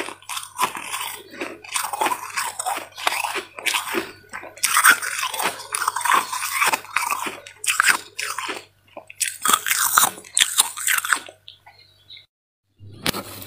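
Freezer frost being bitten and chewed close to the microphone: a fast, irregular run of crisp crunches that breaks off about two seconds before the end.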